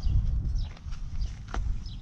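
Low, fluctuating rumble of wind on the microphone, with a few sharp clicks and knocks from hands working at the headlight and plastic grille. The clearest click comes about one and a half seconds in.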